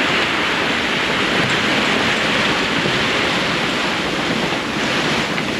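Steady rush of a tropical rain squall: wind and heavy rain over choppy, whitecapped water.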